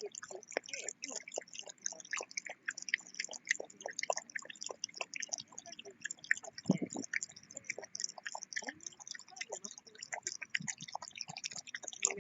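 Dog chewing and gnawing on a ball, a rapid irregular run of small crunches and clicks.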